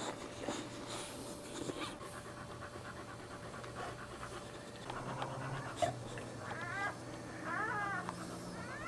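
A dog panting rapidly while whelping, with a few short high squeaks in the last few seconds.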